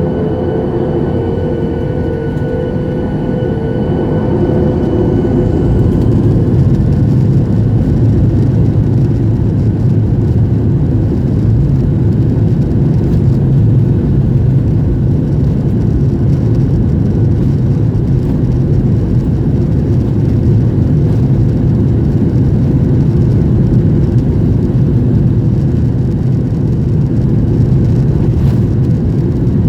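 Boeing 737-800's CFM56-7B jet engines spooling up to takeoff thrust, heard from a cabin window seat by the wing: a whine that rises slightly in the first few seconds gives way to a louder steady roar for the takeoff roll.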